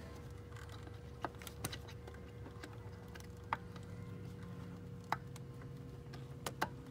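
Light clicks and taps of a rubber hose and its plastic fitting being handled and clipped into place in a car's engine bay, about half a dozen scattered through, over a steady low hum.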